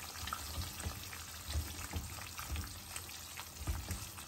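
Silicone spatula stirring a thick tomato-cream sauce with chicken in a pan over a medium-low gas flame: a low sizzle with irregular soft knocks and scrapes of the spatula against the pan.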